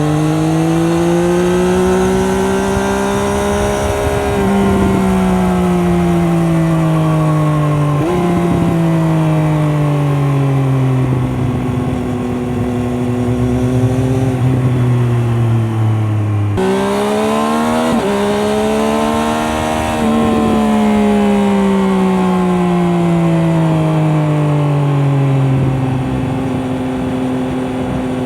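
Triumph Daytona 765 Moto2's 765 cc inline-three engine running through its stock Arrow exhaust while riding. The engine note rises and falls slowly as speed changes, with several sudden jumps in pitch at gear changes and throttle blips.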